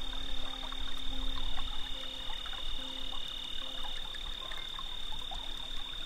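Chorus of frogs and insects at a river's edge: a steady high-pitched insect trill, joined briefly by a second trill, over intermittent frog calls and scattered small clicks.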